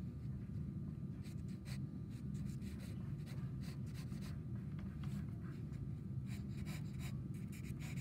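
Sienna Conté pencil scratching on drawing paper in short, irregular strokes, starting about a second in, over a steady low hum.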